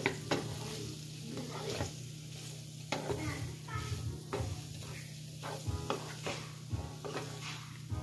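Wooden spatula stirring chicken strips, onion and green bell pepper in a sizzling nonstick skillet, with irregular scrapes and knocks against the pan over the steady sizzle of frying.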